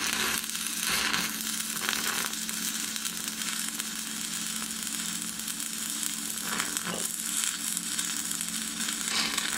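Stick (MMA) welding arc from a thin 2.0 mm electrode at about 70 A, crackling and sizzling steadily as a fillet weld is run on thin-walled square steel tube.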